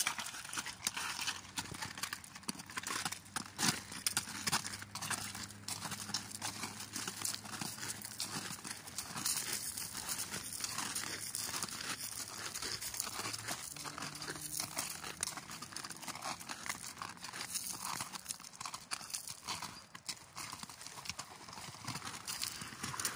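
A horse's hooves and bare human feet crunching and clicking on loose river-bed gravel and stones as the horse is led along at a walk, in an uneven stream of crunches. Near the end, splashing as they step into shallow water.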